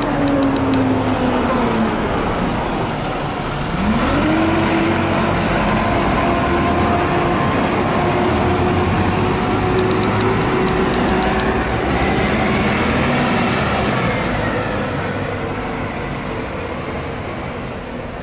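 Street traffic dominated by a bus engine. Its note falls over the first few seconds, then rises again about four seconds in and holds steady as the bus pulls through, and the noise fades near the end.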